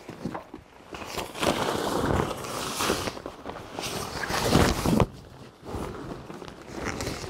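Golf cart cover of fabric and crinkly clear plastic rustling and crackling as it is hauled up and draped over a tractor's sunshade. The noise is loudest from about a second in until about five seconds in, drops off suddenly, then starts up again more softly.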